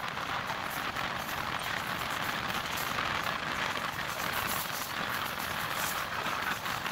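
MEMU passenger train running at speed: wheels on the rails and wind rushing along the side of the coach, an even, steady rushing noise.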